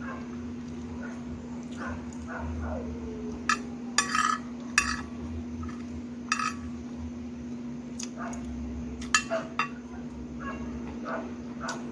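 Dishes and cutlery clinking during a meal: a handful of sharp clinks, clustered around four seconds in and again near nine seconds, over a steady low hum, with faint animal whines in the background.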